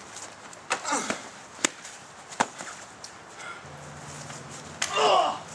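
A few sharp knocks and clanks from aluminium folding lawn chairs being handled and struck, then a short loud shout about five seconds in.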